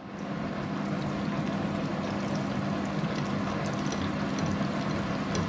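Flour-battered stuffed tofu frying in shallow hot oil in a frying pan: a steady sizzle with small crackles, over a steady low hum.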